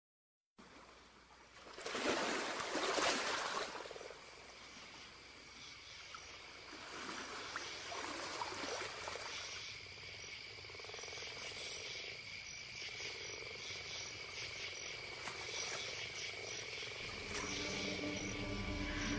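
Faint night-time nature ambience with a steady high chirring, and a rush of noise swelling and fading about two seconds in.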